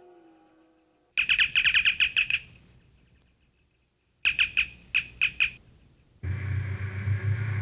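Star Trek original series electronic chirp effects: a quick run of about eight high chirps, then after a pause about six more in two clusters, each run trailing a short echo. About six seconds in, a steady low electronic hum begins.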